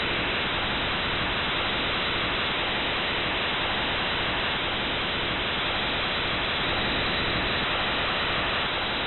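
Steady, even static-like noise with no pitch or rhythm, presented as the sound recorded from Venus's atmosphere: deep and haunting, like the rumble of a distant storm.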